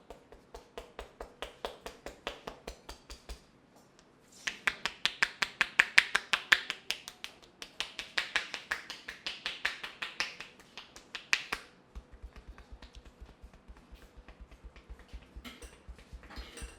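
A fast, even run of sharp clicks, about four a second. They stop briefly about three and a half seconds in, then come back faster and louder, and grow fainter near the end.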